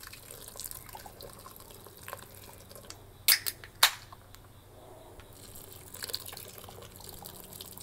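Beer poured from a can into a metal pot of sausages, a low steady pour. Two sharp clicks come a little over three seconds in.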